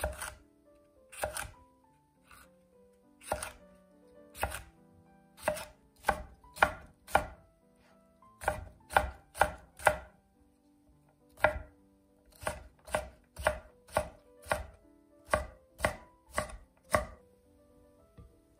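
Chef's knife chopping red bell pepper on a wooden cutting board: a run of crisp knocks, roughly two a second with short pauses, as the pepper is cut into strips and then diced. The chopping stops near the end.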